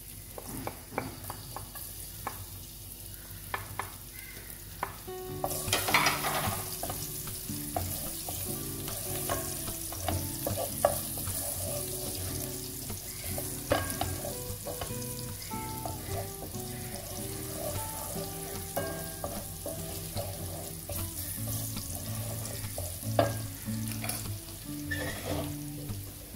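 Minced garlic sizzling in hot olive oil in a nonstick frying pan, stirred with a wooden spoon that clicks and scrapes against the pan. The sizzling grows louder about five seconds in. Soft background music with held notes plays under it.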